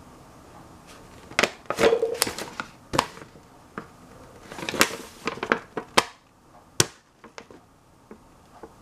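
Paper wrapper of a Nestlé Dessert Blanc white chocolate bar crinkling and crackling in quick sharp bursts as it is handled and unfolded, from about a second and a half in until about seven seconds in.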